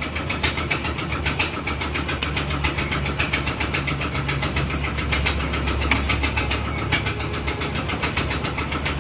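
An engine idling steadily: a low hum with a fast, even ticking.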